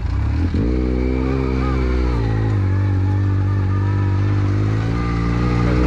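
Yamaha YXZ1000 side-by-side buggy's three-cylinder engine running under throttle. Its pitch dips and picks up again at the start, holds fairly steady, then falls away near the end.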